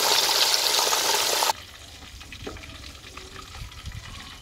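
Fish pieces deep-frying in hot oil in a karahi: a loud, steady sizzle that is cut off suddenly about a second and a half in. After that there is a much quieter background with a low rumble and a few faint knocks.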